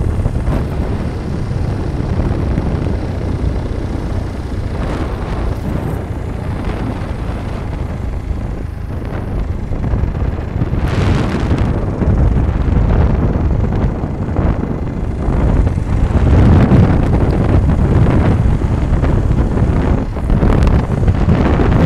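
Wind buffeting the microphone on a moving motorcycle, a loud low rumble that grows stronger in the second half.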